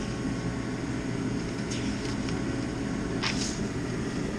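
Paper instruction-manual sheets rustling and sliding under a hand, a faint rustle near the middle and a louder one about three seconds in, over a steady background hiss and hum.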